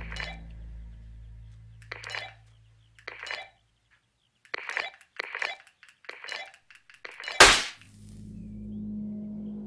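A few short, sharp clicks and clinks, then a sudden loud fizzing pop about seven and a half seconds in as a small electric igniter fires from a remote trigger, with a brief hiss trailing off.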